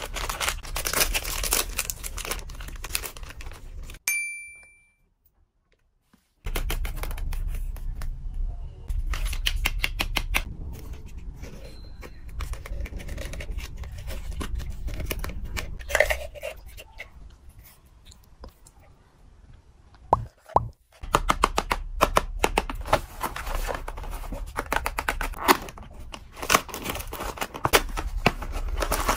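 Plastic snack wrappers and a foil lid being torn open and crinkled by hand, in runs of dense crackling. About four seconds in there is a short high tone, then about two seconds of near silence.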